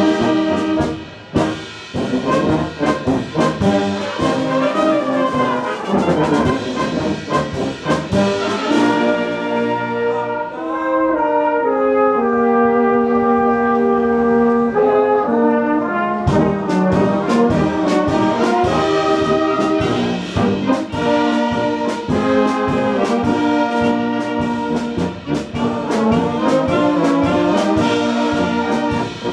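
Bohemian-style brass band (böhmische Blasmusik) playing live, trombones and trumpets over a steady drum beat. About ten seconds in the drums drop out and the brass holds slow, sustained chords, then the full band with drums comes back in at about sixteen seconds.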